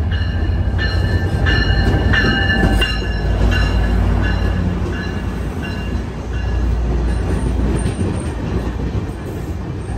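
Amtrak Piedmont passenger train pulling into the station: the diesel locomotive's loud low rumble as it passes, then the passenger cars rolling by. High steady squeals from the slowing wheels and brakes sound over the first half and fade out.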